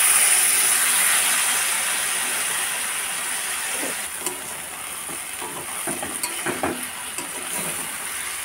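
Water poured into a hot kadai of frying taro stolons and spice paste, hissing and sizzling loudly at first and then slowly dying down. Over the second half, a metal spatula scrapes and clicks against the pan as the mix is stirred.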